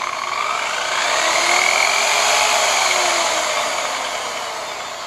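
Electric polisher spinning a wet foam polishing pad down inside a bucket to fling out water and built-up compound, with a spraying hiss. Its motor whine rises to high speed and then falls back down.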